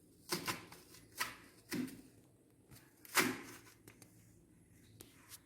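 Several short knocks and clatters at uneven intervals, the loudest about three seconds in.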